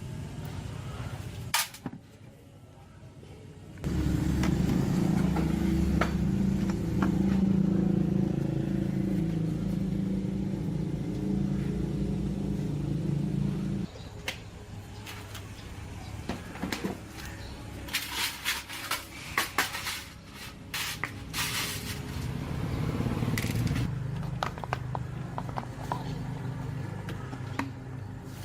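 A small electric motor, as in a power tool, runs with a steady hum for about ten seconds and cuts off suddenly. Later come a run of sharp clicks and scrapes of metal being handled.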